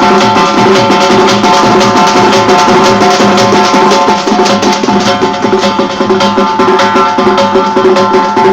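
Loud music: fast, steady drumming over a sustained, unchanging chord.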